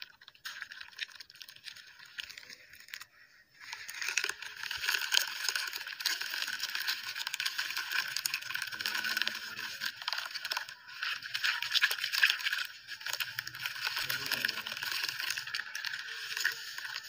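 Soft red dirt being squeezed and crumbled by hand under water, giving a dense wet crackling. It is quieter for the first few seconds, then louder and continuous from about four seconds in.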